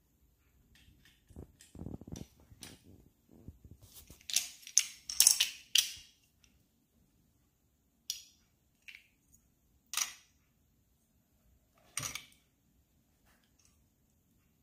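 Irregular small clicks and taps of plastic LEGO bricks being handled and set into a small toy boat floating in a bowl of water, with a louder burst of rustling and clatter about four to six seconds in and a few single clicks after.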